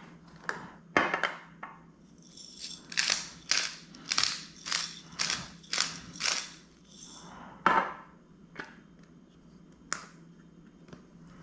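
Disposable black pepper grinder being twisted, about ten grinding strokes at roughly two a second. A knock and a sharp click follow as a seasoning shaker is handled and its lid opened.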